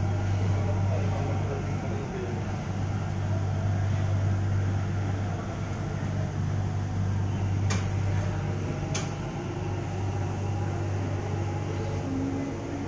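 Namma Metro train running at speed, heard from inside the carriage: a steady low hum and rumble. Two sharp clicks come about eight and nine seconds in.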